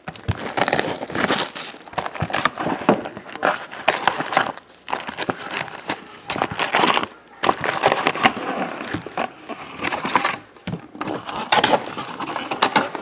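Foil-wrapped trading card packs crinkling and rustling as they are pulled out of a cardboard hobby box and stacked, in irregular bursts with some cardboard scraping.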